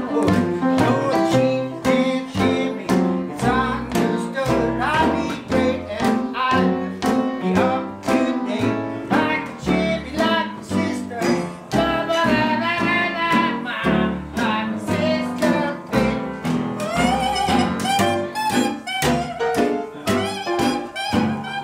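Live acoustic band music: an upright piano played with acoustic guitar accompaniment, at a steady, brisk beat.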